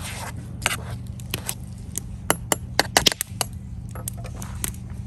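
Metal spork stirring in a small camping pot of soup and clinking against its sides: a string of sharp clicks, thickest about two to three seconds in, over a steady low hum.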